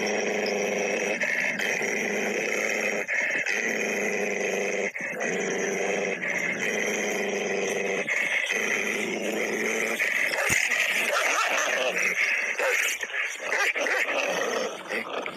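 A wolf growling and snarling over raw meat while guarding its food. The growl is sustained and loud, broken by short gaps every second or two.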